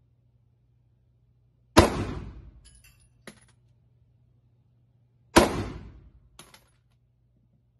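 Two 9 mm Glock 19 pistol shots about three and a half seconds apart, each echoing through an indoor range. Each shot is followed by a few small metallic clinks.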